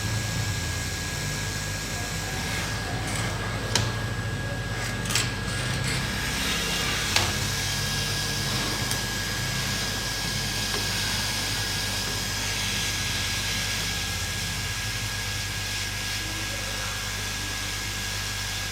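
Hot air rework gun blowing steadily, with three sharp clicks of a metal tool against the circuit board between about four and seven seconds in.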